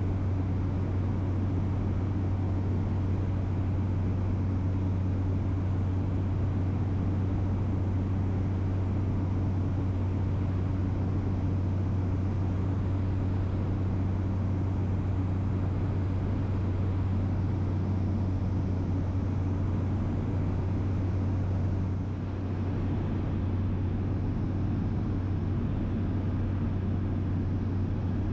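Steady cabin drone of a small plane in flight: a strong low hum from the engine and airflow with fainter steady tones above it. The level dips slightly for a moment about three quarters of the way through.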